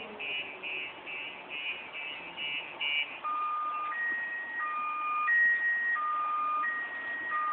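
Car alarm sounding: a run of rapid beeps, about three a second, then, about three seconds in, switching to a two-tone pattern alternating high and low roughly every two-thirds of a second.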